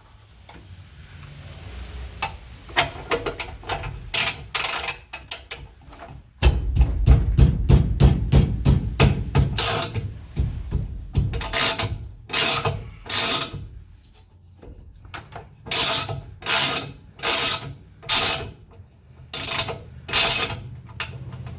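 Ratchet wrench clicking in repeated runs of quick strokes, with a low hum underneath.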